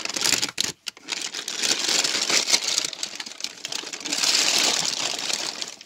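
Thin plastic bag rustling and crinkling loudly as a Yorkshire terrier roots around inside it, with a short break under a second in.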